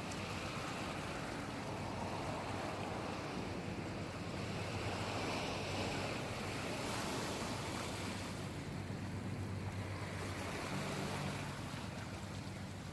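Sea waves washing in, the rush of water swelling and easing every few seconds, with a low steady hum underneath.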